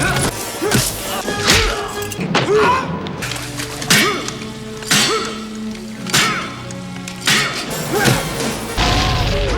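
Movie clips cut together: a man's short grunts, groans and shouts of effort and pain, one about every second, over film score music, with thuds and crashes of blows and impacts.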